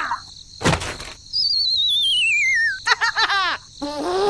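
Cartoon sound effects: a sudden thump, then a long falling wavy whistle like a slide whistle, followed by quick chirps and a giggle-like pitched sound near the end.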